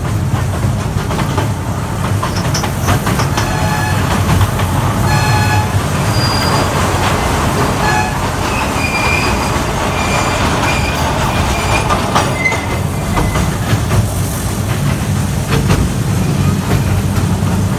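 Toy passenger train running with a steady low rumble from its engine and wheels. Its horn sounds in short toots about four and five seconds in, and the wheels squeal thinly on the curve through the middle.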